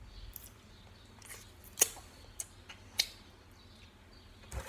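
A handful of sharp small clicks and ticks, spaced irregularly about a second apart, with a louder double click near the end.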